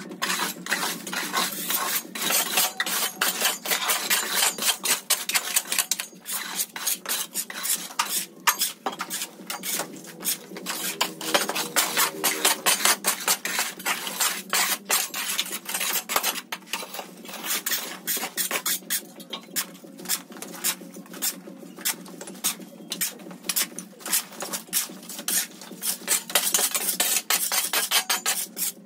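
Dirt and rubble being swept and scraped across a rough concrete floor with long-handled tools (a broom and a shovel), in quick, irregular, repeated scraping strokes.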